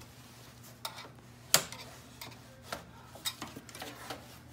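Flathead screwdriver prying the plastic faceplate off a car navigation unit, its tension clips clicking loose: a series of sharp plastic clicks, the loudest about a second and a half in.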